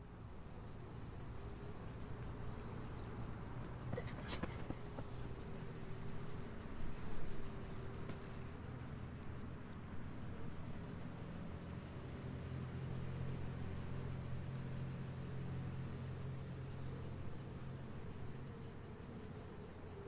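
Cicadas buzzing in a steady, rapidly pulsing high drone, with a low steady hum underneath and a short louder noise about seven seconds in.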